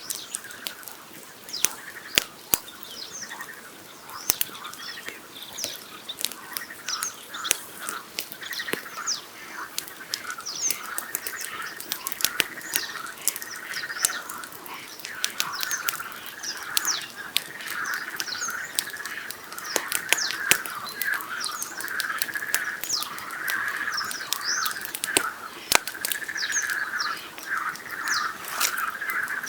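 Wood campfire crackling with scattered sharp pops, over a dense chorus of night birdsong and frog calls that grows fuller about halfway through.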